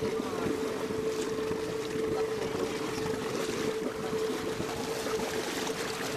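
Fishing boat's engine running at a steady drone, with water rushing and splashing along the hull and wind on the microphone.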